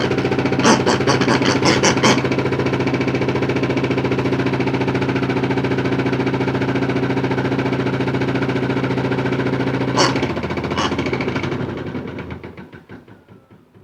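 Modified Hotpoint toy washing machine running with balls in its tub: a steady motor hum with a run of knocks in the first two seconds and two knocks about ten seconds in. The motor then winds down and stops near the end.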